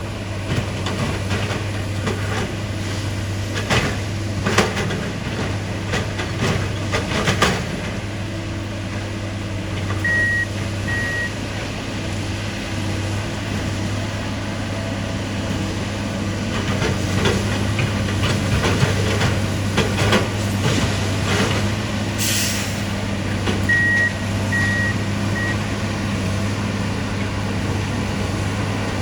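Diesel railroad maintenance-of-way machines working on track: engines running steadily, with metal clanks and knocks over the first several seconds. A warning beeper sounds in short beeps about ten seconds in and again near the end, and there is a short hiss of released air a little past the middle.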